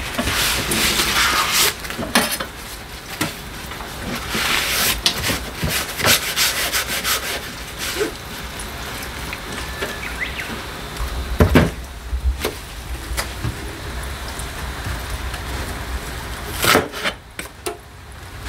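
Kitchen knife slicing an onion on a wooden cutting board: a run of irregular rubbing, scraping strokes with a few sharper knocks of the blade on the board, the strongest about halfway through.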